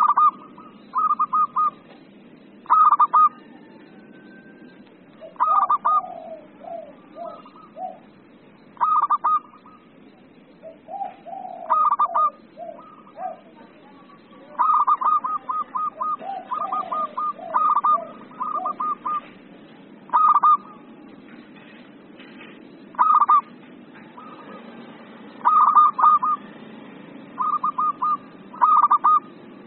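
Zebra dove (perkutut) singing its cooing song: short bursts of quick staccato coo notes, repeated every one to three seconds. Lower-pitched runs of notes come in between a few times.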